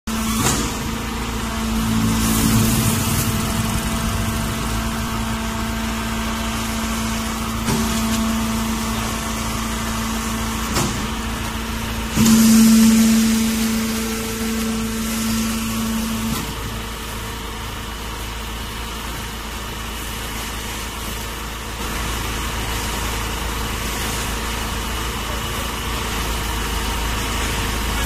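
Hydraulic straw baler's motor and pump running steadily as a hum. A louder humming tone swells for a couple of seconds near the start and again for about four seconds around the middle, with a few short knocks in between.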